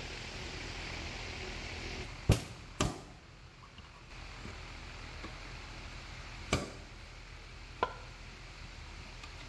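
Screwdriver tip working at the top of a metal can: a few sharp metallic clicks and knocks, two close together a little over two seconds in, then two more spaced out later. A steady hiss runs under the first two seconds.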